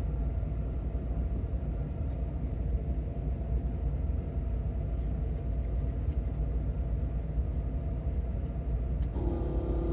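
Desoldering iron's built-in vacuum pump running with a steady hum while sucking melted solder off a potentiometer's pins.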